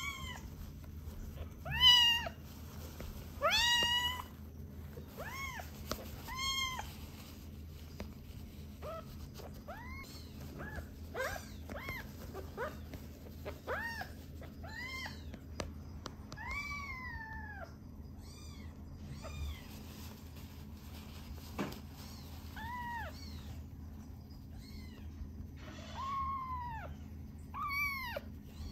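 Young kitten mewing again and again, around twenty short high cries that each rise and fall in pitch, loudest in the first few seconds, while it is held and its bottom is wiped with tissue to make it toilet.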